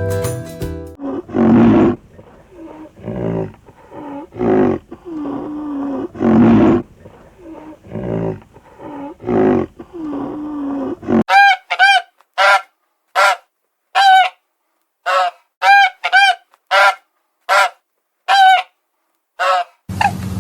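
Animal calls: for about ten seconds a large animal makes deep, rough, drawn-out calls, then about a dozen short, high honking calls follow at about one a second.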